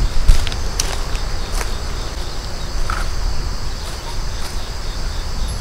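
Insects chirping steadily in the background over a low rumble, with a few sharp clicks in the first two seconds and one short chirp about three seconds in.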